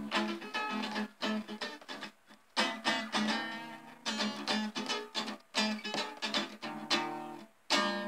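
Intro music of plucked and strummed guitar, a run of picked notes that ring and die away, with brief pauses between phrases.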